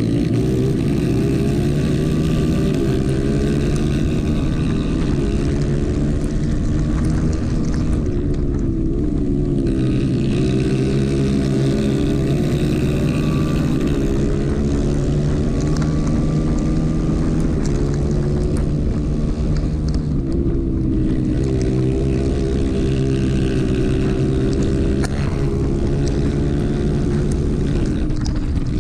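Racing kart engine heard from on board, running hard under race load. Its pitch climbs on the straights and drops each time the driver lifts for a corner, several times over.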